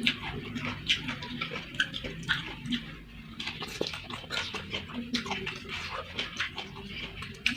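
Close-miked chewing and lip-smacking: a string of irregular wet mouth clicks from someone eating fried noodles and rice.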